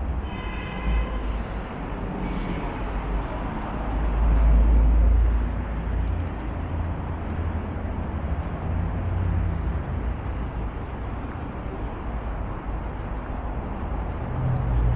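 City street ambience of road traffic: a steady hum of cars over a deep low rumble that swells loudest about four seconds in, as a vehicle passes or wind hits the microphone.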